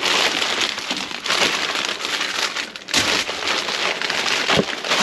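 Plastic-wrapped pepperoni packages, plastic bags and cardboard boxes rustling and crinkling as gloved hands rummage through a dumpster, with a couple of sharper knocks about three seconds in and near the end.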